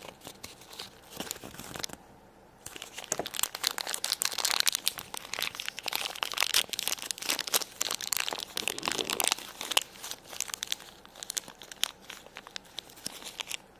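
Thin plastic packaging of a Shopkins surprise packet crinkling and tearing as it is handled and opened by hand: a dense run of quick crackles that starts after a short pause, about three seconds in.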